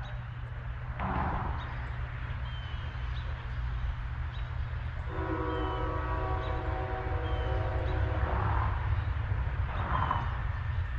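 CSX freight train's diesel locomotives rumbling and growing louder as they approach. The air horn sounds one long chord about five seconds in, lasting roughly four seconds.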